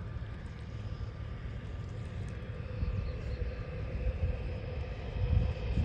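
Floatplane engine running steadily as it taxis on the water, a steady tone that rises slightly over a deep rumble which swells near the end.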